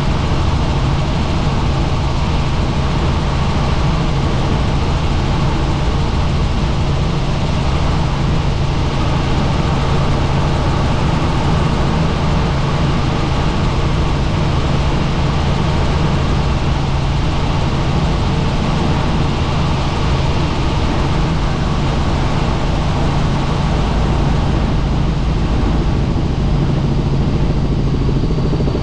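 Helicopter in flight: the rotor and turbine engine make a loud, steady drone with a constant low hum and no change in pitch.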